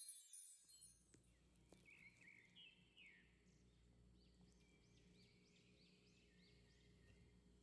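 Faint bird chirps, a quick run of short repeated calls over a low steady hum, with one more call near the end.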